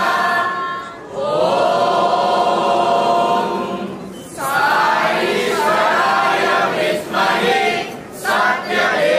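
A group of young voices singing a welcome song together in unison, with long held notes in phrases of a few seconds and short breaths between them.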